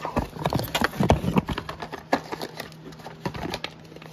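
Cardboard auto-parts boxes being handled and set down on a concrete floor: a quick run of knocks and scuffs, busiest in the first two seconds, over a steady low hum.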